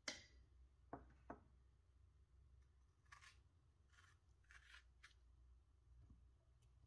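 Faint sounds of a small kitchen knife cutting fresh strawberries by hand: a sharp click at the start, two soft knocks about a second in, then quiet slicing scrapes through the fruit a few seconds later, over a low hum.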